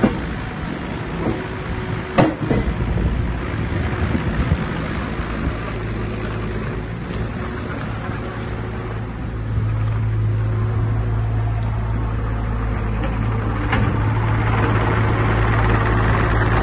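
JCB 8026 CTS mini excavator's three-cylinder diesel engine running steadily under hydraulic work. There is a sharp knock about two seconds in, and the bucket scrapes the ground. The engine gets louder about halfway through and stays so.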